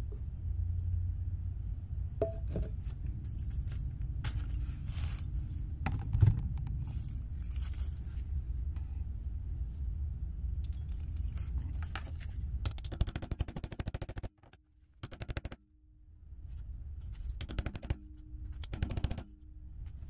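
Small metal parts being handled on a workbench as a wire wheel brush is fitted onto its arbor shaft: clicks and scrapes, one loud knock, and short spells of rapid rattling, over a low steady hum.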